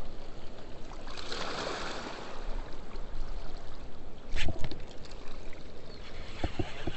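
Steady rush of river water below a spillway, swelling louder about a second in. A sharp knock cuts through about four and a half seconds in, and a few light knocks follow near the end.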